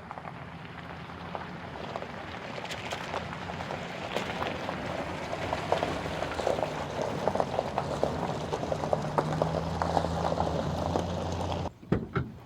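Water pattering and bubbling in a dense crackle of small drops, over a low steady hum that grows louder near the end; it cuts off suddenly.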